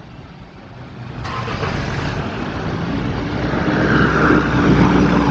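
Road traffic passing: a motor vehicle's engine approaching, getting steadily louder, with a low rumble and a steady engine hum in the last couple of seconds.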